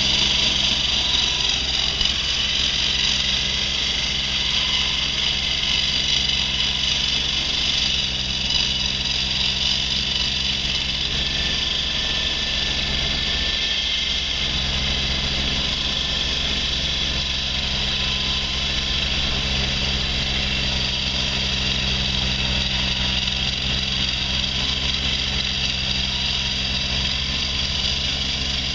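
Engine of heavy construction machinery running steadily at a constant speed, with a steady high hiss over it.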